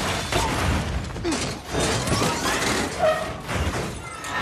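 Film sound effects of a violent car crash: a dense, continuous jumble of crunching impacts and debris as a car is smashed and flung through the air.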